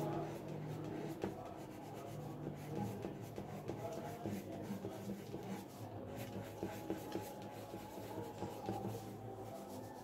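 Graphite pencil scratching across paper in many quick, short strokes as palm fronds are sketched, over a low steady hum.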